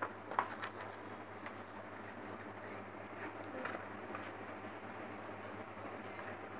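A sheet of paper being handled on a tabletop: lifted, turned and laid flat, with a few soft rustles and light taps scattered through, over a faint steady hum.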